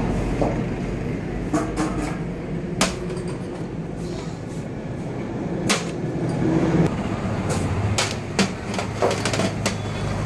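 Small stainless-steel soan papdi moulds clinking against each other and the steel tray as they are handled, in scattered sharp knocks a second or so apart, over a steady low hum.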